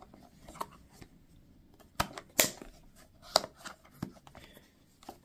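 A double-sided plastic lure box being handled, giving a handful of separate sharp clicks and knocks, the strongest about two to three and a half seconds in.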